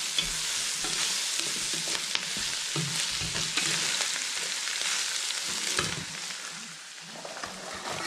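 Beef and green vegetables sizzling in a steel wok, with a wooden spatula stirring and scraping against the pan. The sizzle dies down in the last second or two.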